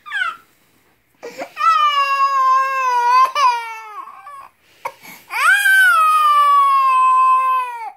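Toddler crying: a short sob, then two long wails of about three seconds each that sink slightly in pitch.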